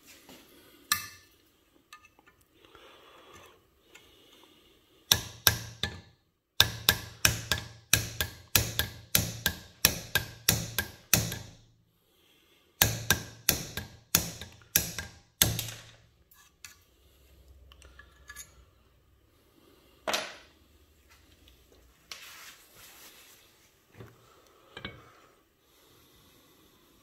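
Hammer tapping a screwdriver held as a punch against a pin in a rusty cast-iron hand plane clamped in a bench vise: two long runs of sharp metal-on-metal strikes, about three a second, with a short pause between them. A lone strike follows, then small clinks of loose metal parts being handled.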